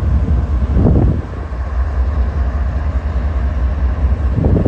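Several diesel freight locomotives idling together, a steady low rumble that swells briefly about a second in and again near the end.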